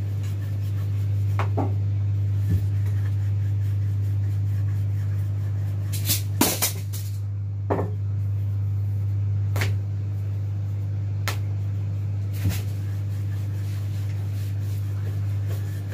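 A steady low electrical-sounding hum, with scattered soft knocks and taps as a wooden rolling pin and hands work a sheet of fondant icing on a countertop.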